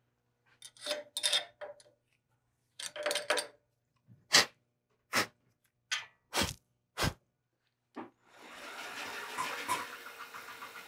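Metal scraping and sliding as the 6.7L Cummins cylinder head is pushed into the resurfacer's fixture, then a series of sharp metal clanks as it is set down and positioned. About eight seconds in, a steady mechanical noise starts and keeps going.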